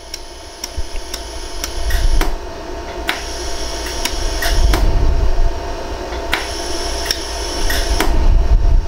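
LaserStar iWeld laser welder firing a run of pulses along the seam of a 14K yellow gold ring, each pulse a sharp snap, roughly one to two a second and unevenly spaced, over a steady machine hum.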